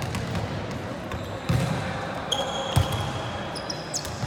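Volleyball being hit during a match: two thuds, about a second and a half in and just under three seconds in. Sneakers squeak on the court floor through the second half, over the hum of voices in the gym.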